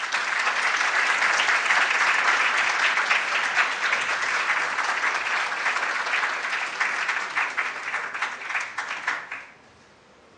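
Audience applauding, a dense steady clapping that thins slightly and then stops suddenly about nine and a half seconds in.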